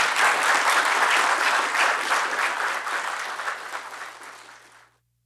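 Audience applauding, loud at first, then fading away over the last two seconds and cutting off.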